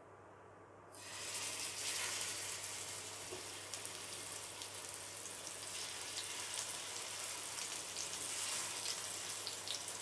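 Marinated tandoori chicken pieces dropped into hot oil in a flat pan, sizzling suddenly about a second in and frying with a steady hiss.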